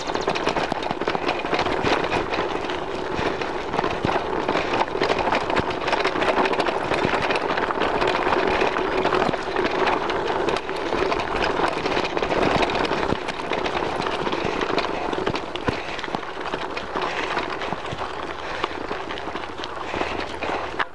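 Mountain bike rolling over a loose gravel dirt track: tyres crunching on the stones and the bike clattering over the bumps in a steady, dense crackle.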